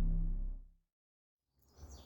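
Bass-heavy intro music with a deep rumble fading out, then cutting to complete silence for about a second.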